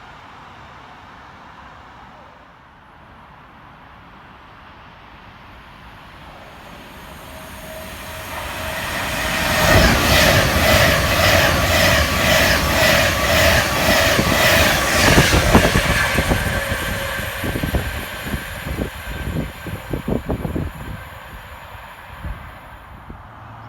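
A train passing at speed through the station, building from a distant rumble to a loud rush of wheel and rail noise with a steady whine and a rapid, regular clatter of wheels over the rail joints. It fades with a few last clicks as the rear passes.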